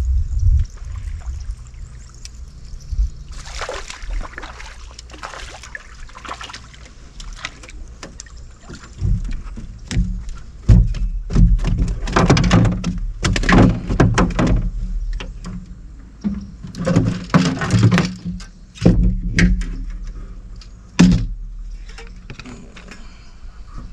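Knocking, thumping and rustling as fishing gear is handled in a small fishing boat, in several bouts, with a single sharp knock near the end.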